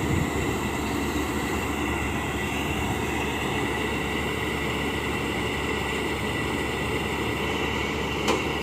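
Heavy farm machinery running steadily during wheat harvesting, a low engine rumble under a constant high whine, with a single sharp knock near the end.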